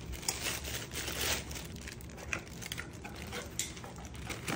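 Rustling and crinkling of plastic packaging, with scattered light clicks, as airsoft accessories are handled.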